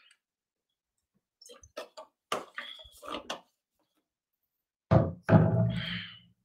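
Plastic water bottle being handled after a drink: a run of small clicks and knocks as the cap goes back on. About five seconds in there is a louder thump, followed by a brief throat sound.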